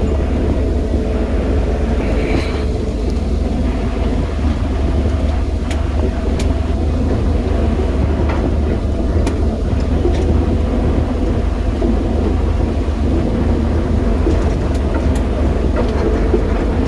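Diesel engine of a JCB 215 excavator running steadily, a deep continuous drone with a few faint clicks.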